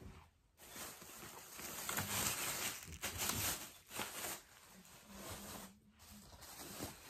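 Plastic shopping bag rustling and crinkling as it is handled, with a short break near the end.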